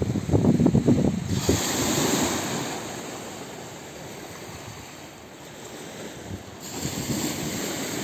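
Wind buffeting the microphone in gusts for the first second or so and again near the end, over a steady rushing wash of water where the river meets the sea.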